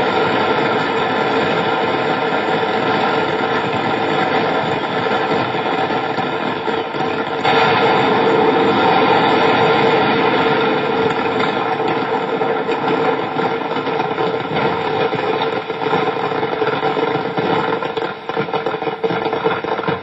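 Burning fireworks stock at a fireworks factory fire: a loud, continuous rushing noise thick with fine crackling. It steps up in loudness about seven and a half seconds in and grows choppier near the end, with no single big blast standing out.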